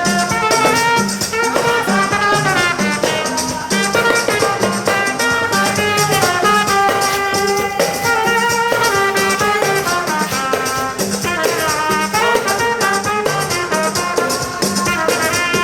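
Instrumental background music with a busy, quickly stepping melody over steady percussion, playing loudly and continuously.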